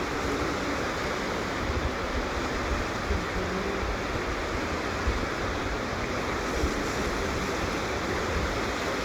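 Steady rushing of moving water, with wind rumbling on the microphone now and then.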